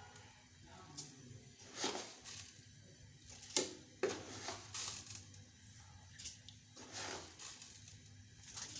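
Spoon scraping and tapping in a metal cooking pot of heating milk, as sugar is spooned in and stirred: short scrapes and knocks at an irregular pace of about one a second, over a faint steady hum.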